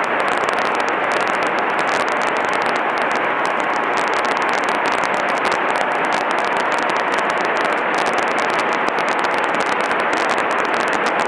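Steady engine and wind noise in the cabin of a Grumman single-engine light aircraft in flight, an even rushing drone that neither rises nor falls.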